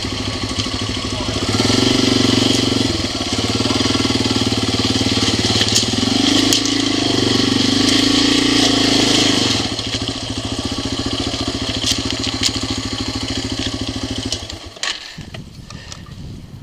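Motorcycle engine running close by, revved up twice, briefly about two seconds in and longer from about six to nine and a half seconds, then falling away sharply near the end.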